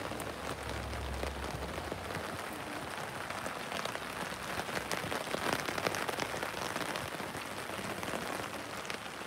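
Heavy rain falling steadily on an open umbrella overhead and on a wet brick patio, a dense, even spray of drops.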